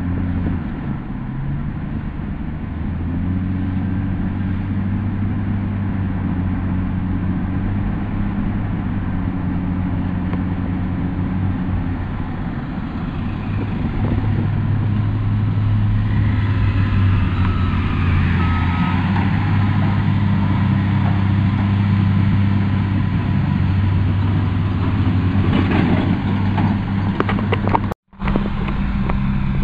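Motor vehicle engine running steadily with tyre and road noise over a gravel roadbed, heard from inside the moving vehicle. It gets louder about halfway through and drops out for an instant near the end.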